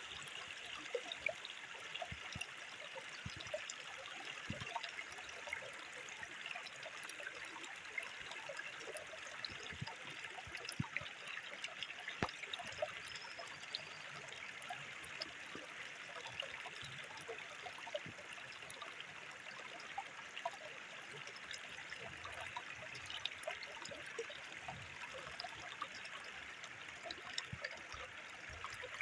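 Shallow stream trickling and rushing steadily over rock, with scattered light clicks and taps from sticks and reed strips being handled close by.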